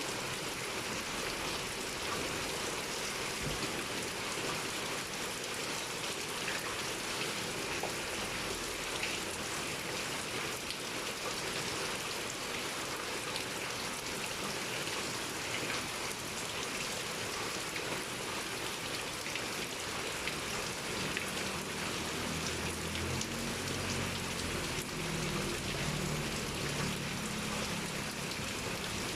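Heavy rain pouring steadily, an even hiss of drops hitting surfaces. A faint low hum comes in under it for a few seconds near the end.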